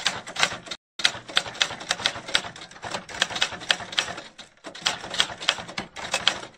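Typewriter keystroke sound effect: a rapid run of sharp key clacks as text types onto the screen, breaking off briefly about a second in and again past the middle.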